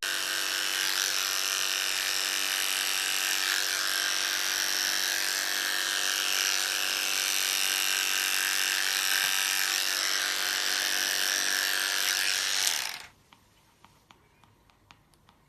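A small electric motor buzzing steadily at an even pitch, then cutting off suddenly about thirteen seconds in, followed by a few faint clicks.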